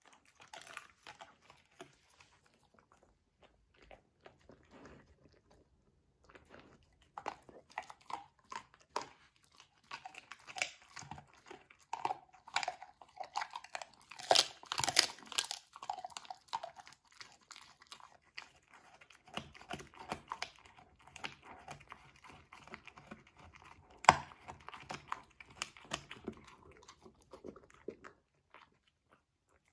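A Labrador–Golden Retriever mix chewing a hard dried treat, with wet chewing and sharp crunches. The crunching is sparse at first and turns steady for most of the rest, with the loudest crunches a little before halfway.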